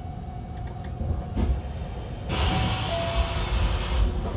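Hankyu 1300 series electric train with a Toyo IGBT inverter running, heard from inside the car as a low rumble. About halfway through, a hiss comes in together with a short tone that steps down in pitch.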